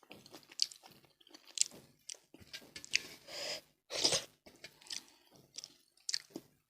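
A person chewing food close to the microphone: irregular wet mouth clicks and smacks, with two longer rushes of noise about three and four seconds in.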